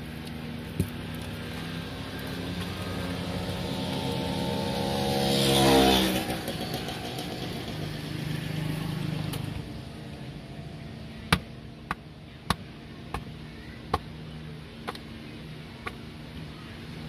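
A motor vehicle passes close by: its engine rises in pitch and grows louder to a peak about six seconds in, then fades into a lower hum. In the second half comes a series of about seven sharp clicks, roughly one every half second to a second.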